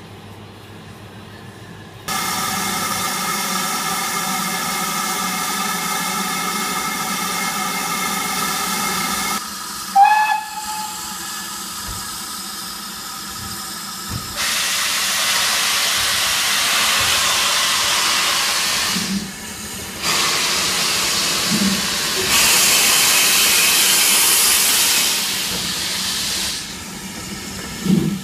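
Steam locomotive whistle sounding a steady chord of several notes for about seven seconds, followed by a sharp bang and then long bursts of steam hissing from the engine, with a few dull thuds near the end.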